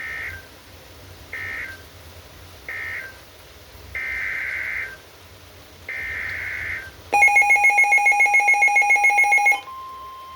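Emergency Alert System signalling between warning messages: five raspy digital data bursts, three short then two about a second long. A loud, rapidly pulsing alert tone follows for about two and a half seconds, and near the end it gives way to the steady single-pitch NOAA Weather Radio 1050 Hz warning alarm tone.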